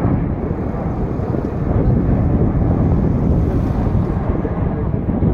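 Jet airliner engines roaring steadily, with wind buffeting the microphone.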